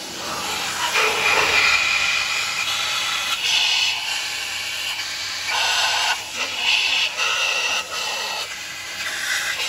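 Air-powered spray gun with a suction canister hissing as it blasts cleaning spray over an engine cylinder head, in bursts with short breaks.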